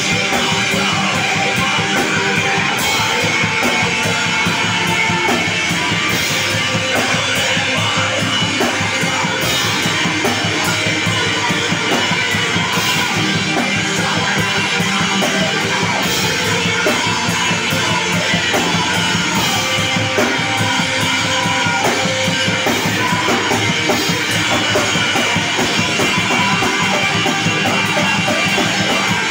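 Live screamo band playing loud and without a break: distorted electric guitars, bass guitar and a drum kit pounding a fast beat.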